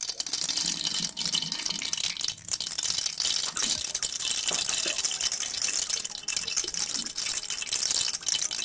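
Ghee and oil sizzling steadily, with fine crackles, in the hot, dry base of a pressure cooker.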